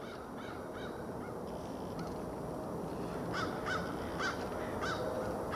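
A bird gives a series of short, harsh calls, faint at first and then about five louder ones in quick succession in the second half. Under them is the steadily rising rumble of an approaching Boeing 767-300ER jet airliner on final approach.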